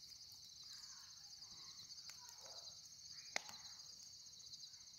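Faint, steady insect chorus: a continuous high-pitched, fast-pulsing trill, as from crickets, with a single sharp click about three and a half seconds in.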